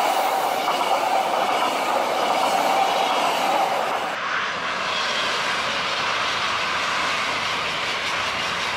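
High-speed electric trains passing at speed, with a steady rushing of wheels and air. The first is a close pass-by with a faint steady tone in the rush. After a cut about four seconds in, a second train's rushing comes slightly quieter, from farther off.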